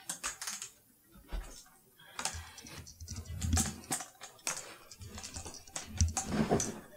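Metal forearm crutches clicking and tapping in an uneven rhythm as someone hobbles a few steps on them, with dull thumps and shuffling as he sits down near the end.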